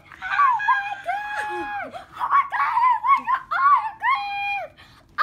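A baby squealing and babbling: a run of high-pitched held notes that each drop off at the end, with quicker wavering sounds around the middle.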